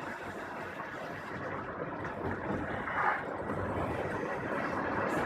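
Steady rushing noise of a vehicle on the road, growing slightly louder near the end.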